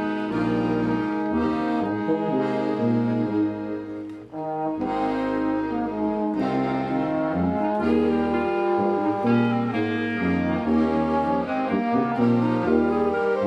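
Small band of tuba, trombone, accordion and clarinet playing a tune together, with the tuba taking the bass line under sustained chords. The music breaks off briefly about four seconds in, then carries on.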